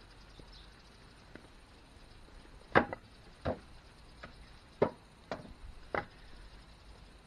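Split firewood logs knocking against one another as they are handled and set down: about five sharp wooden knocks spread over the second half, the first and the fourth the loudest, with a few faint clicks between.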